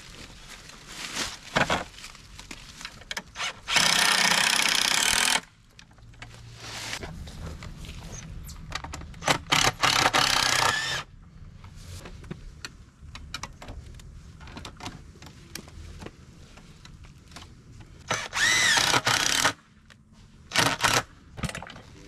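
Two-stroke chainsaw pull-started, then idling with several short bursts of revving; one rev climbs in pitch about eighteen seconds in.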